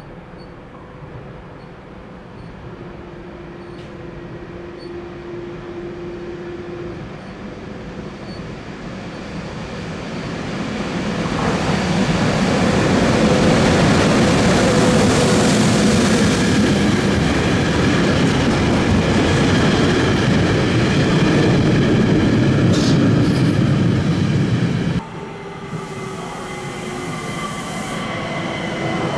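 A train passing through the station: the rumble of wheels on rail grows louder for about ten seconds, then stays loud with wheel and track noise. About 25 seconds in it cuts off abruptly to a quieter rail noise, which starts building again.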